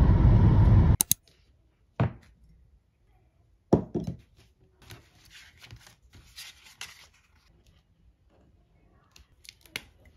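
A loud noisy passage cuts off sharply about a second in. Then come a few light knocks and some soft rustling, as of small objects being handled, with a couple of clicks near the end.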